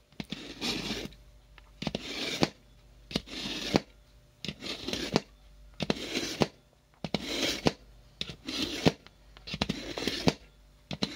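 Steel AKM bayonet blade drawn repeatedly through the third stage of a household knife sharpener. Each stroke makes a rasping scrape with a click as it starts or ends, about eight strokes roughly every second and a half.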